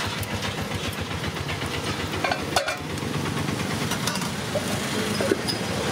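Gas stove burners hissing under cooking pans over a low, steady mechanical throb, with a few metal clinks of cookware, two near the middle and one near the end.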